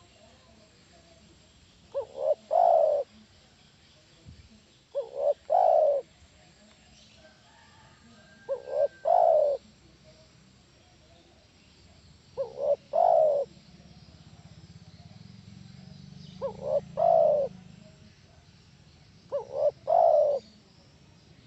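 Spotted dove singing: six cooing phrases about three to four seconds apart. Each phrase is two short notes followed by a longer, louder coo.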